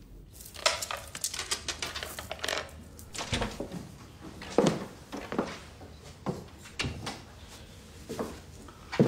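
Jewellery and small trinkets clinking and clicking as they are handled and set down on a table, in a run of light taps, with one duller knock about three and a half seconds in.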